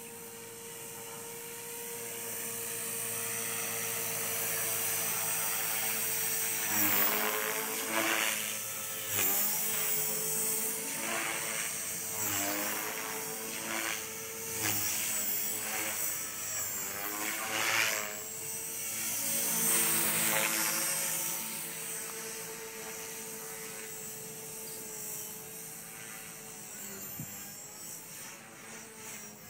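Radio-controlled model helicopter flying: a high motor-and-rotor whine that holds steady at first. From about a quarter of the way in it swoops up and down in pitch and grows louder as the helicopter manoeuvres, then it steadies and fades near the end.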